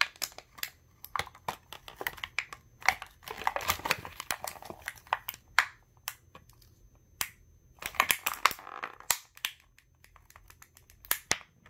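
Thin clear plastic packaging crinkling and crackling in irregular short bursts with sharp clicks, as hands pull it open around a plastic Beyblade part.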